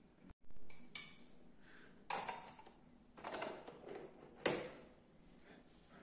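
Hard plastic clunks and clicks as the lid of a Philips Senseo coffee pod machine is shut and a small glass cup is set down on its drip tray: four or so separate knocks, the sharpest about four and a half seconds in.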